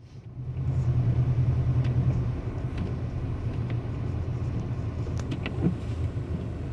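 Car engine running with a low, steady drone, louder for the first couple of seconds and then settling to an even level.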